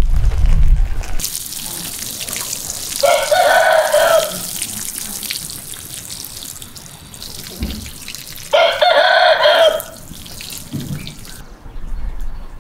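A watering can sprinkles seedlings in a raised bed with a steady hissing spray that stops about a second before the end. A rooster crows twice over it, each crow lasting about a second. A low rumble fills the first second.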